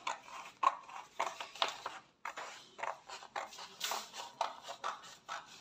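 Scissors cutting through pattern paper: an irregular string of crisp snips, about two or three a second, as the armhole is cut out.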